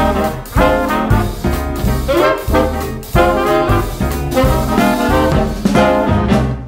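Upbeat swing-style background music with brass horns over a steady beat, fading out at the very end.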